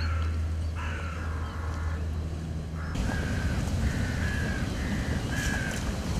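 Crow-family birds cawing: two harsh caws in the first second, then a run of about five shorter caws from about three seconds in. A steady low hum lies under the first half and gives way to a rougher low rumble about three seconds in.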